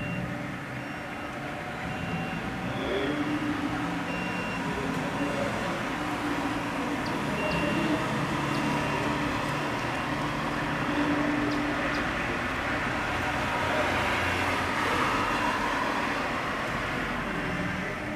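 Steady low rumble and hiss of vehicle traffic, with faint short high beeps repeating at intervals of a second or more.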